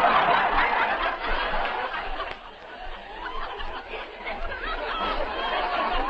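Studio audience laughing at a punchline, loudest at first, dying down after about two and a half seconds and swelling again near the end, heard on an old radio broadcast recording.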